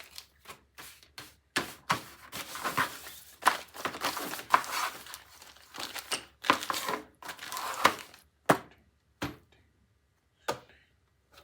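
Plastic parts bags crinkling and rustling in irregular bursts as small replacement parts are handled and counted. Near the end there are a couple of sharp clicks, then it goes quiet.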